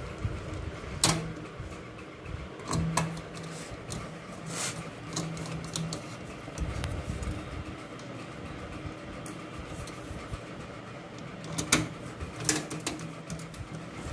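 Screws being driven into the motherboard standoffs of a steel PC case: sharp metal clicks, loudest about a second in and again near 12 s, with a small motor humming in several short bursts.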